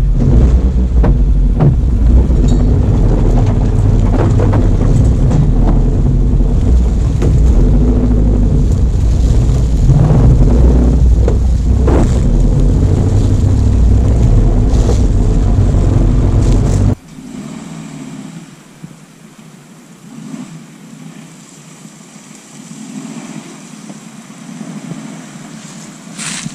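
Loud rumble from a camera mounted on the body of a 2019 Suzuki Jimny 1.5 as it drives off-road: its engine, wind and vibration on the microphone, with scattered knocks from the rough ground. About 17 seconds in the sound cuts to a much quieter one: the Jimny's engine heard from ahead as it drives toward the camera.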